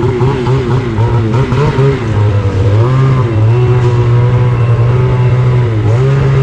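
Engine revving through a newly fitted aftermarket exhaust: several quick blips, then held at a steady higher rev for a few seconds before dropping back. The exhaust note is very nice and quiet.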